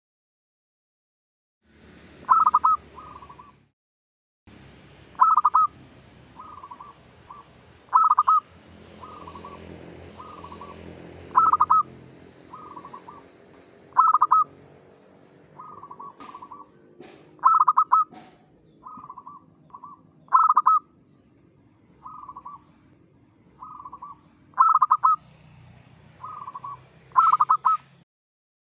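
Zebra dove (perkutut) cooing its rhythmic song: a loud staccato coo phrase about every three seconds, with softer coos in between.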